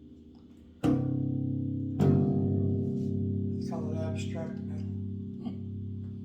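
Bass guitar plucked twice, a little over a second apart, with the second note left to ring out and fade with a slow pulsing wobble.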